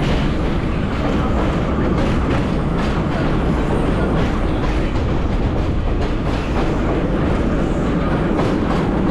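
Vintage BMT AB Standard subway car running at speed on elevated track, heard at an open car window: a steady loud rumble with repeated clicks of the wheels over rail joints.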